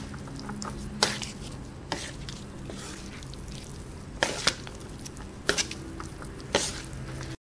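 Two wooden spoons stirring and tossing a tray of cooked instant noodles with chilli seasoning, with about six sharp knocks of the spoons against the tray. A steady low hum runs underneath.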